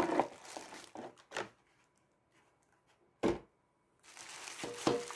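Headphones in a thin plastic wrapping bag being handled: the plastic rustles and crinkles, with a few light clicks in the first second and soft crinkling again near the end. A single short thump about three seconds in is the loudest sound.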